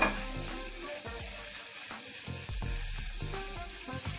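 Chopped onion and tomato sizzling steadily in hot oil in an aluminium pressure cooker pan, with a sharp clack at the very start.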